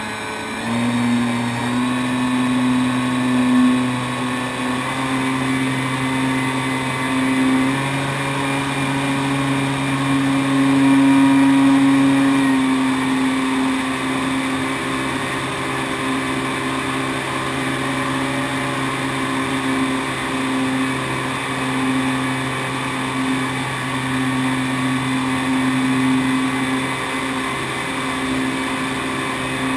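Great Planes Piper J3 Cub RC model's motor and propeller running at climb power, a steady droning tone, heard close from a camera mounted under the wing with wind rushing past. The pitch steps up about half a second in as the throttle opens, climbs a little to its loudest around ten to twelve seconds in, then eases slightly.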